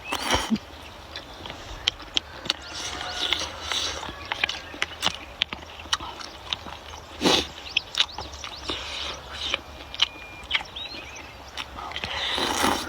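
Close-miked eating sounds: wet chewing and smacking with many small clicks, and a few louder noisy bites or slurps.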